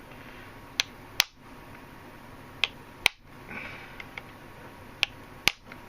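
Knife blade being lightly tapped into the glued seam of a plastic laptop battery case to split it open: six sharp taps in three pairs, about two seconds between pairs.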